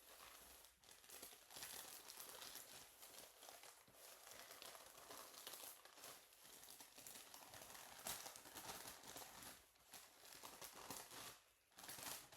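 The paper wrapper of a pair of sterile surgical gloves being opened and unfolded by hand, with a continuous crinkling and rustling of packaging.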